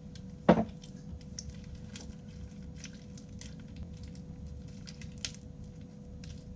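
Hands kneading crunchy slime with beads mixed in: scattered small squishes and clicks, with one loud thump about half a second in.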